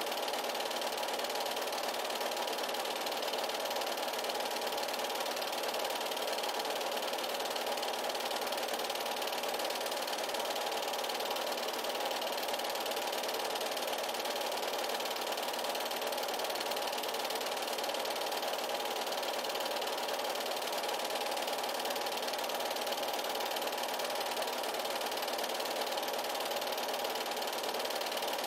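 8mm film projector running with a steady, even mechanical whirr.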